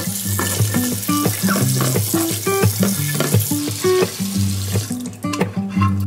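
Water running from a tap into a sink over a grill pan being scrubbed with a sponge, with background music; the water stops about five seconds in.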